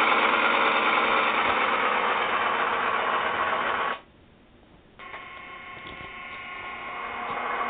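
Diesel locomotive engine sound playing from the onboard speaker of a Broadway Limited Blue Line HO-scale GE AC6000 model running on analog power. About four seconds in it cuts out for about a second as the locomotive starts moving, then comes back quieter and grows louder again. The owner blames the dropouts on his very simple old Mehano analog controller.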